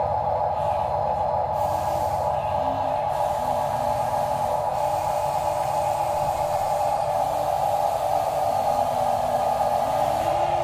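Toy-grade RC construction vehicles' small electric motors and gearboxes whirring steadily, with a fainter motor tone stepping up and down in pitch as the machines change speed.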